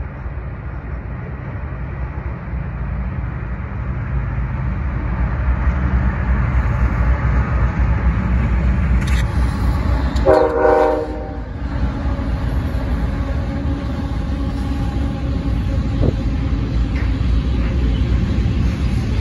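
Freight train passing close by, led by Union Pacific 7858: a steady low diesel locomotive rumble that grows louder, one short horn blast of about a second near the middle as the locomotives pass, then the covered hopper cars rolling by.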